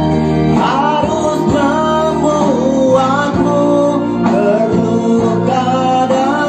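Music: a song with a wavering lead melody over sustained chords and plucked guitar.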